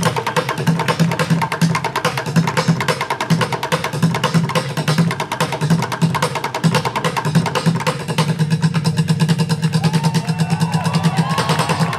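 Bucket drumming: drumsticks beating fast, dense rhythms on upturned plastic buckets, with deep thuds from the bucket bottoms under rapid sharp strokes.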